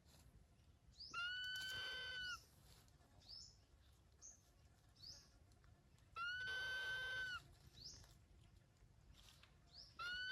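Animal calls: two long, steady-pitched cries about five seconds apart, each lasting over a second, with short high rising chirps between them.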